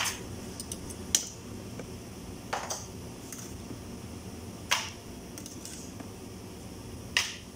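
Metal steaming molds knocking and clinking as they are handled and set down: about five short, sharp knocks spread a second or two apart, over a low steady hiss.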